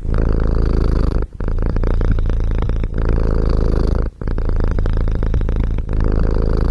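Tabby cat purring close to the microphone. The purr runs in cycles of about a second and a half, each one breaking off briefly at the turn of a breath.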